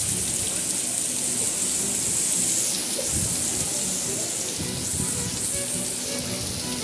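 Steady rain falling, a continuous even hiss.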